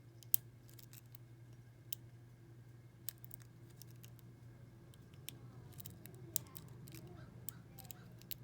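Lock pick and tension wrench working the pins inside a six-pin First Watch padlock: sparse, irregular small metal clicks and ticks while the picker feels for spool pins, over a steady low hum.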